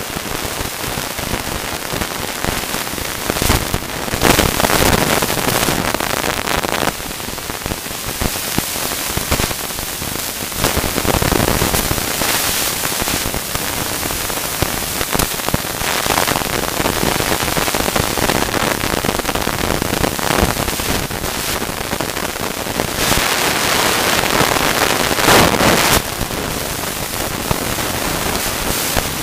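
Mountain bike ride down a dirt forest trail heard through a rider-mounted camera: continuous rushing, crackling noise from the tyres, rattling bike and wind on the microphone, swelling louder several times.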